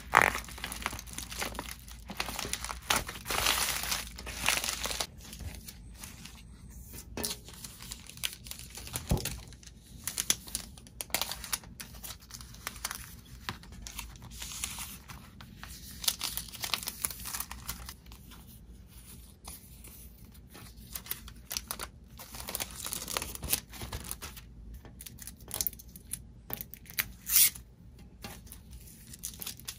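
Packaging being handled by hand: irregular crinkling and tearing, in uneven clusters of crackles.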